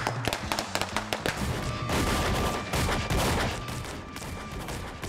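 Rapid volley of gunshot-like bangs, many in quick succession and thinning out toward the end, from a shooting death scene rigged with about twenty squib hits, with music underneath.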